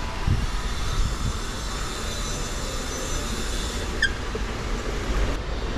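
Escalator running: a steady mechanical rumble with a faint high whine, and a brief squeak about four seconds in.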